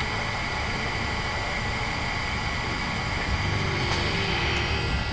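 Heat gun running, its fan blowing steadily with a thin high whine, as it shrinks heat-shrink tubing over a soldered wire joint.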